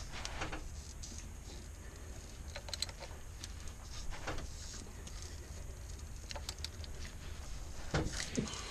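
Scattered clicks and small metal taps of a ratchet spanner working on the crankshaft pulley bolt, as the engine is turned by hand to walk the stretch-fit auxiliary belt off the pulley, over a low steady hum. The clicks come in short clusters and are busiest near the end.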